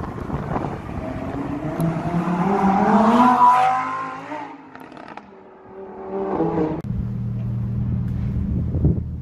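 Lamborghini Huracán EVO RWD Spyder's naturally aspirated V10 accelerating hard, its revs climbing for about three and a half seconds before the sound fades away. About seven seconds in, it cuts sharply to the engine idling steadily.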